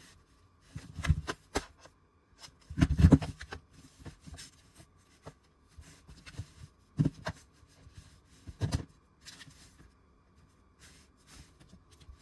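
Handling noises: irregular knocks, clicks and rustles, the loudest about three seconds in, over a faint steady hum.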